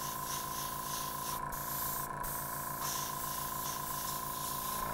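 Airbrush spraying with a steady hiss, cut off briefly twice between about one and a half and two seconds in, over the steady pulsing hum of the small JULIA on-demand airbrush compressor running.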